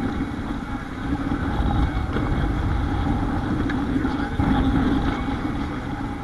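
Wind buffeting the microphone on an open sailboat in rough seas, over the steady rush of waves and water along the hull and a continuous low hum.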